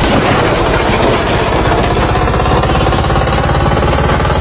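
Loud, steady mechanical rattling made of fast, even pulses, engine-like.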